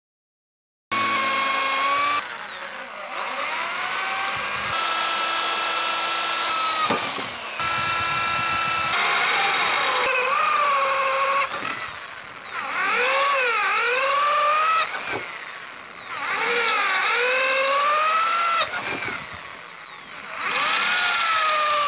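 Corded electric drill boring holes in a metal plate. The motor's whine sags in pitch each time the bit bites into the metal and climbs back as the load eases, several times over; it starts abruptly about a second in.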